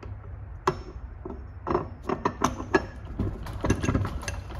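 Metal clicks and taps as the Janus guard body and its bolt are handled and brought up to the retrieval tool's inner barrel: one sharp click under a second in, then scattered clicks in two clusters. A low steady hum runs underneath.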